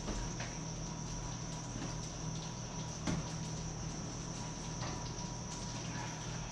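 Faint knocks of a metal baking pan and oven rack as the dish is taken out of a wall oven: one about three seconds in and another near five seconds, over a steady electrical hum and high whine.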